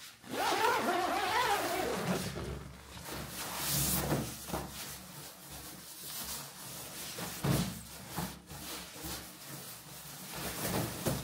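Nylon tent fabric and a down sleeping bag rustling and swishing as the bag is pulled out and spread over the sleeping mat. In the first two seconds a wavering pitched sound rises and falls over the rustling.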